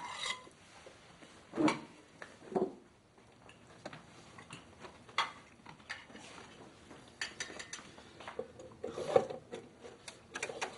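Dishes and cutlery clinking at a dinner table, with scattered small knocks and clicks and a few brief vocal sounds.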